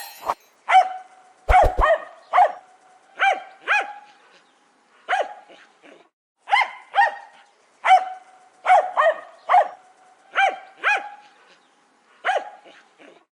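Jack Russell terrier barking sharply and repeatedly, about seventeen high-pitched barks in quick runs of two or three with short pauses between. A brief low thump comes about one and a half seconds in.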